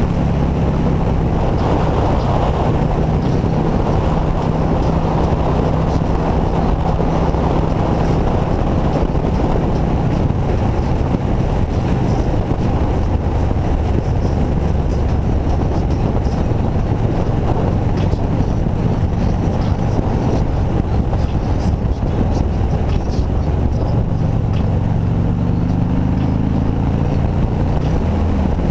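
Touring motorcycle engine running at a steady cruise under heavy wind rush on the microphone. Over the last few seconds the engine note climbs as it accelerates, then drops back.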